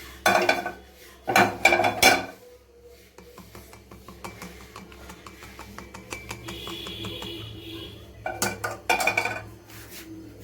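Metal pot and kitchen utensils clanking as a hot herbal decoction is poured off into a glass: a few sharp clanks in the first two seconds, quick light clicking in between, and another group of clanks a little after eight seconds.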